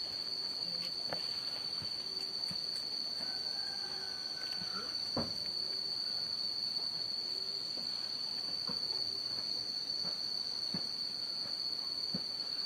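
Steady, shrill chorus of insects, one high unbroken tone. A faint, drawn-out distant call of about a second and a half comes a little over three seconds in, with scattered faint ticks.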